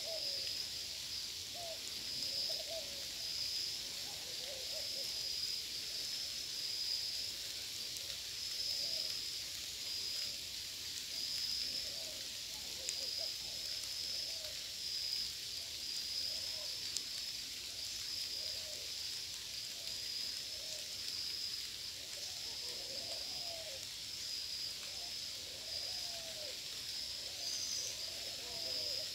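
Birds calling in a mango orchard: short, low hooting or cooing notes repeated again and again, coming more often in the last third. Under them runs a steady high, pulsing chirr.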